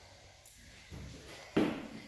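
A person dropping into a burpee on a wooden floor: a couple of short thuds and scuffs as hands and trainers land and shift, the loudest about a second and a half in.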